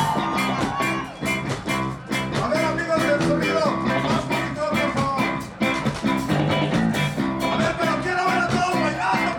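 Ska band playing a song, with a steady, evenly repeating beat and a singing voice over it.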